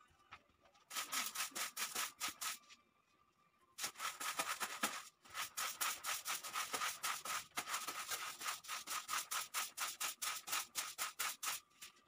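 A hand brush scrubbing a rug in quick back-and-forth strokes, about four or five a second. There are two runs, with a pause of about a second early on and a brief break in the middle.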